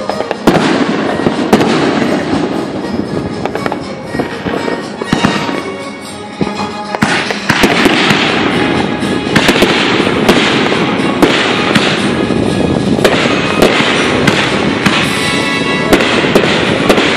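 Aerial fireworks display: a rapid run of shell bursts and crackling, growing denser and louder about seven seconds in.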